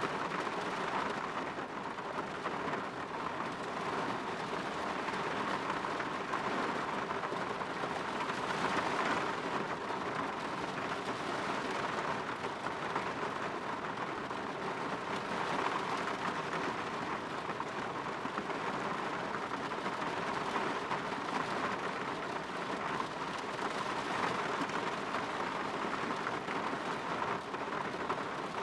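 Rain falling steadily against a window: an even, unbroken hiss of many small drops.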